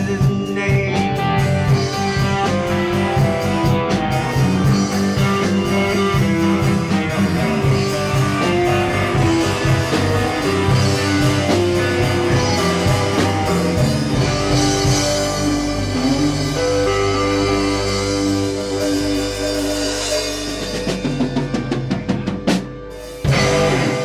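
Live rock band playing: electric guitar, bass guitar, keyboard and drum kit. Steady drumming gives way about halfway through to long held chords, and the song closes with a sharp final hit shortly before the end.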